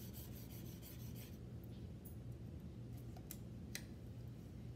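Protein-residue test swab scratched lightly over a plastic cutting board, followed by a few faint clicks as the swab is handled. A low steady hum runs underneath.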